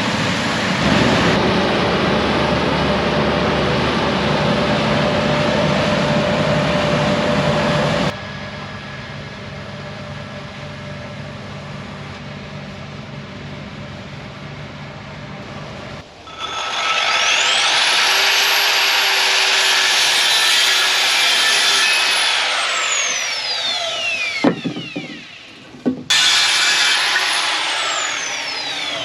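Electric power saw cutting wood: its motor spins up with a rising whine, runs through the cut, then winds down with a falling whine, once midway and again near the end. Before that comes a long stretch of loud, steady cutting noise.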